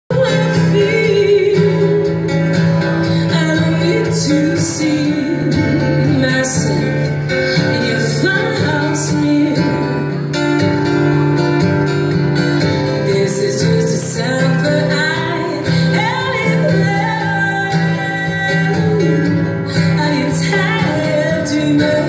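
Live folk-pop band playing: a woman sings the lead over acoustic guitar and a steady low accompaniment.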